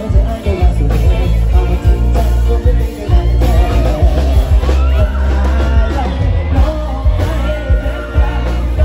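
Live band music played loud through a PA, with electric guitar, bass and a drum beat; a man's amplified singing comes in over it about halfway through.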